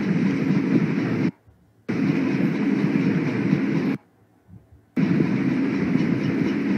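Three bursts of loud, steady rushing noise, each about two seconds long, that start and cut off abruptly, with short quiet gaps at about a second and a half in and about four seconds in.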